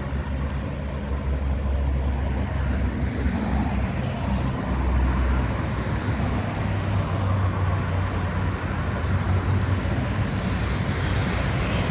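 Road traffic on a city avenue: cars driving past, a steady noise of engines and tyres with a strong low rumble.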